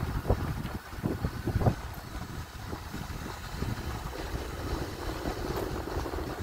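Wind buffeting the microphone as power wheelchairs roll along a concrete path: a low, uneven rumble with several irregular thumps in the first two seconds, then steadier.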